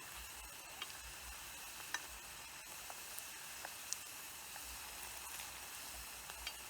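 Food frying, with a steady sizzling hiss and scattered small pops about once a second. Insects chirp faintly in the background.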